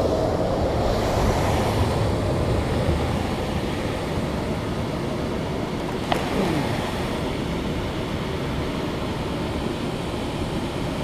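Steady rush of water flowing through a spillway, with one sharp click about six seconds in.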